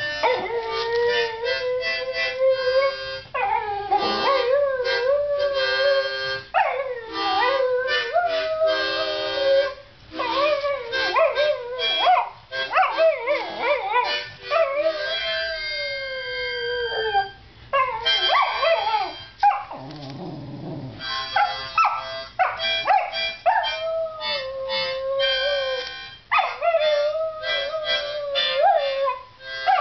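A cocker spaniel howling along to a harmonica. Her long howls waver and slide in pitch over the harmonica's chords, with one long falling howl about halfway through.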